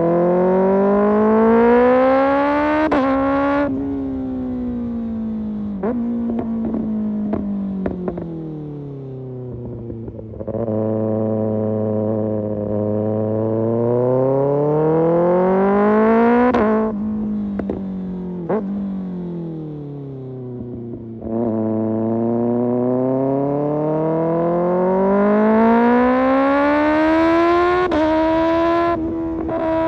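Kawasaki ZX-6R inline-four with an Arrow Pro Race exhaust, accelerating hard three times with the pitch climbing steadily over several seconds. Each climb cuts off sharply as the throttle closes, then the revs fall away with scattered sharp pops from the exhaust.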